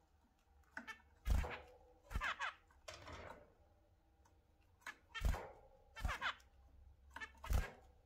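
Zebra finches calling: about eight short, quick calls at irregular spacing, each a note sliding downward. Several of the calls come with a low thump.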